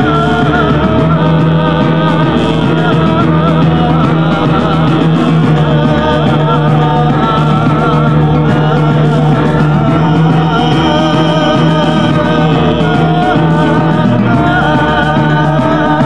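Loud music with a singing voice over a held low drone, without a break.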